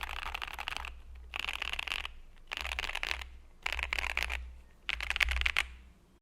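Mechanical keyboard with keycaps being typed on in a sound test: five bursts of rapid key clicks, each about a second long, with short pauses between them.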